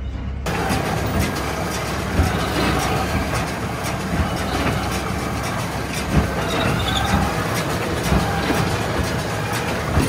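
Tractor and Massey Ferguson big square baler working while baling straw: steady engine and machinery noise with a low hum and a few irregular knocks. It starts abruptly about half a second in.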